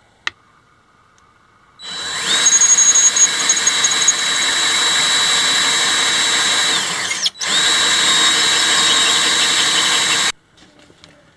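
Cordless drill with a hole saw cutting a circular blank out of a sheet of hard plastic. The motor whines up about two seconds in, runs steadily for about five seconds, stops briefly, then runs again for about three seconds before cutting off; a single click comes just before.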